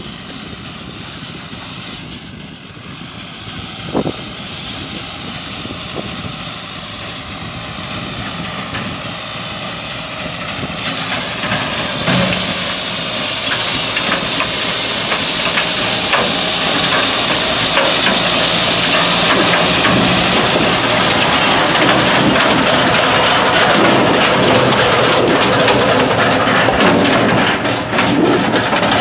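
Tractor pulling a stone-picking machine across a stony field: the engine runs under load while stones clatter and rattle in the picker, a dense, continuous clatter with a few sharper knocks. It grows louder over the first two-thirds and then holds steady.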